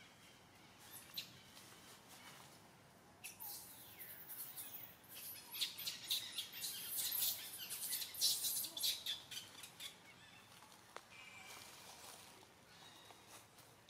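A rapid flurry of high-pitched animal chirps and squeaks, starting about three seconds in and lasting some seven seconds, then fading back to quiet forest ambience.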